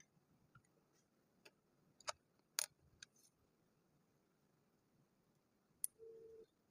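Faint clicks of interlocking plastic building bricks being handled and pressed together: a handful of sharp separate clicks, the loudest about two and a half seconds in, then a short low buzz near the end.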